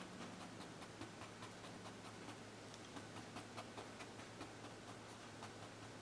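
Bristle paintbrush lightly dabbing oil paint onto a canvas: faint, irregular ticks several times a second, over a low steady hum.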